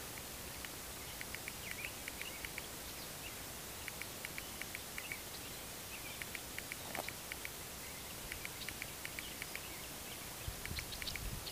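Open-field outdoor ambience: a steady hiss with many short, high chirps scattered throughout, and a few low thumps on the microphone near the end.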